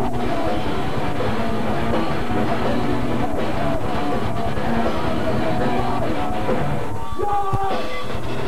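Live punk rock band playing loud: electric guitar, drum kit and a singer at the microphone, all thick and dense. About seven seconds in, the drums thin out for a moment under a few held notes, then the full band comes back in.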